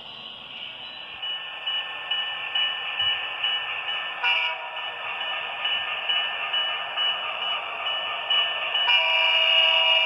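Model diesel locomotive running toward the microphone with a steady high whine, growing louder as it nears. About nine seconds in, its horn starts sounding, a held chord of several tones with a buzzy, small-speaker quality.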